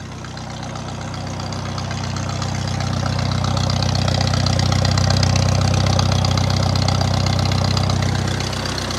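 1950 Farmall Cub's four-cylinder flathead engine idling steadily at an even pitch. It grows louder over the first five seconds or so and eases slightly near the end.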